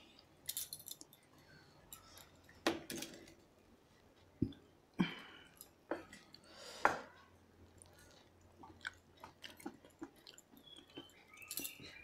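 Eating by hand from steel plates: chewing and wet mouth sounds over rice and fish curry, with scattered irregular clicks and clinks of steel bowls and plates.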